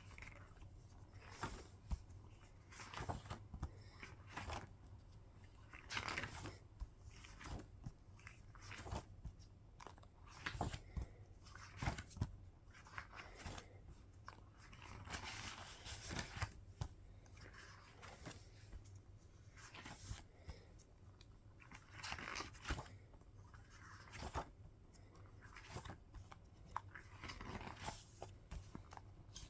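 An album's packaging and contents being handled by hand: irregular crinkling, rustling and small knocks.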